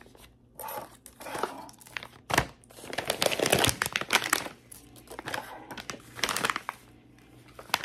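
Clear plastic bags crinkling and rustling as they are handled, in irregular bursts, with one loud crackle about two and a half seconds in.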